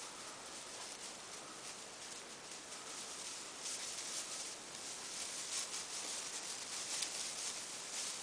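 Steady rustling and swishing of dry grass stalks, with faint irregular crackles, as feet move through a dry field.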